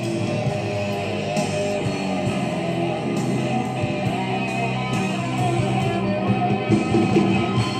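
Rock music playing back from a cassette tape on a JVC KD-VR5 stereo cassette deck, coming in abruptly as playback starts.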